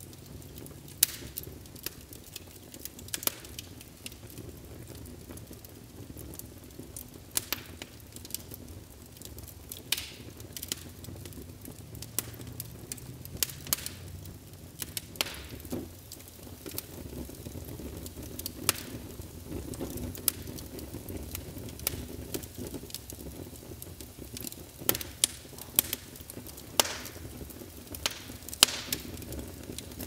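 Fire crackling, with sharp pops at irregular intervals, several of them loud, over a low steady rush of flame.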